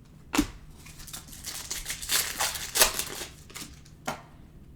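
Basketball card packs and cards being handled: a sharp click about half a second in, then a few seconds of rustling and crinkling, and another click near the end.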